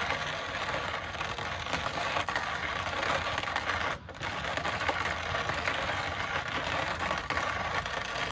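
Hand-cranked manual coffee grinder crushing roasted coffee beans, a continuous gritty crunching as the handle is turned slowly, with a brief break about halfway through.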